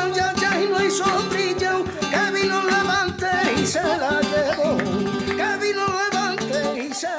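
Flamenco song: a voice singing long, wavering, ornamented lines over strummed and plucked acoustic guitar, with sharp rhythmic strikes throughout.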